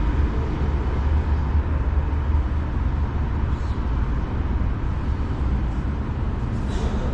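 A steady low mechanical rumble, like a vehicle engine running, with no sudden events.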